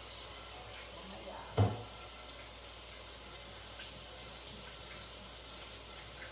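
A steady hiss of running water in a kitchen, with a single sharp knock about a second and a half in.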